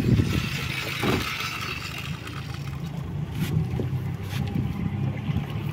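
Wind rumbling on the microphone over open water from a boat, with a couple of sharp clicks in the second half.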